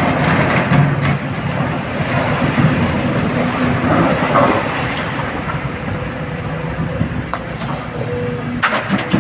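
Heavy diesel machinery working steadily, most likely an excavator running under load, with a few sharp metallic knocks and clanks, several of them near the end.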